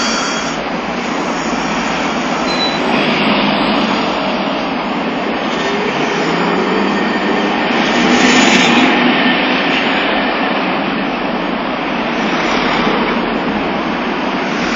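Steady road traffic noise from passing cars and trucks, swelling as a vehicle goes by about eight seconds in.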